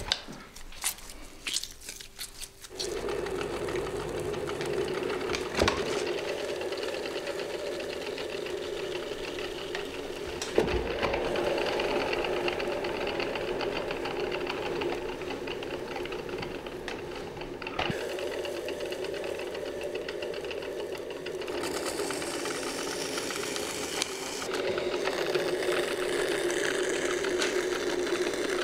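Potter's wheel running with a steady motor hum while clay is thrown on it, starting about three seconds in after a few quiet taps of hands on clay. A higher hiss joins about two-thirds of the way through.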